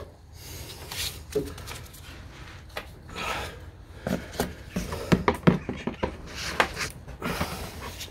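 Fiat 500's plastic underbody inspection panel being worked loose with a screwdriver and gloved hands: irregular scraping and rubbing of plastic against the car body, with a run of sharper clicks and knocks in the second half.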